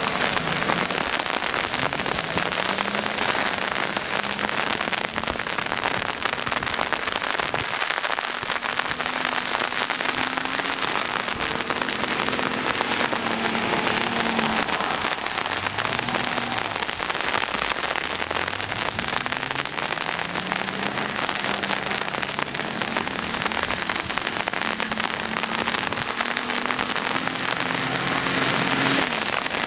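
Freezing rain falling close to the microphone on an umbrella, a steady dense hiss. Under it, an Acura MDX's V6 engine revs up and falls back again and again as the SUV spins donuts on snow.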